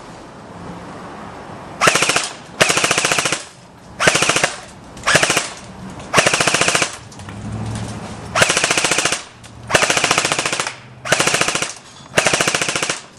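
Echo 1 XK CQB airsoft electric gun (AEG) firing on full auto in about nine short bursts, each a rapid rattle of its gearbox cycling at around 15 shots a second.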